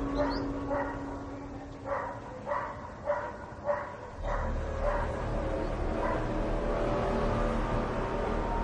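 A dog barking repeatedly, about nine short barks in the first six seconds, over a steady low hum.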